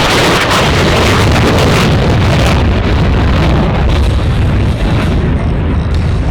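Jet aircraft passing low and loud, a steady dense rumble of engine noise that overloads the microphone.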